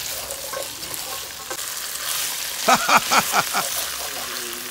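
Chicken pieces and long beans sizzling in a pot as they are stirred with a wooden spatula. About three seconds in comes a quick run of five sharp pitched sounds, each falling in pitch.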